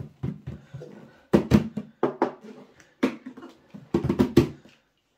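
Plastic case of a 12 V 100 Ah lithium iron phosphate battery knocking and thumping as it is handled and set down on a laminate floor. It is a series of short knocks, loudest about a second and a half in, with a quick cluster around four seconds in.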